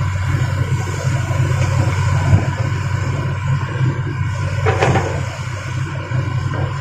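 Heavy diesel machinery running steadily with a low drone, with a knock a little past two seconds in and a short, harsh crash or scrape just before five seconds in.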